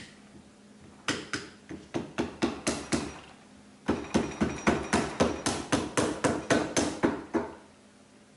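Rubber mallet tapping a new dust seal down onto the slider of a motorcycle front fork to seat it. A run of about eight quick taps, a pause of about a second, then a longer run at about four taps a second.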